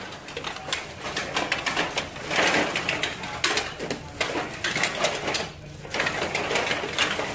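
Black plastic garbage bags full of empty beer cans rustling and clattering as they are handled, in quick irregular crackles and clicks.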